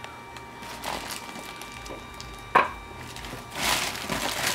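A single sharp knock about halfway through, then bubble wrap being pulled out of a cardboard box, crinkling and rustling near the end.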